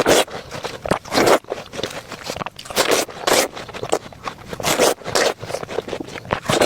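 Close-miked biting and chewing of fruit: irregular crunches one after another.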